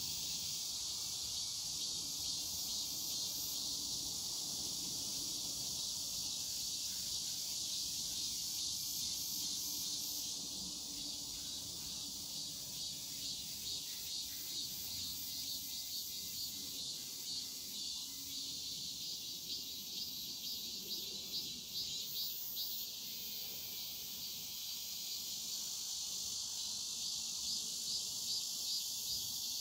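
Cicadas calling in a dense, high-pitched chorus, with a faster pulsing call standing out over the steady drone in places.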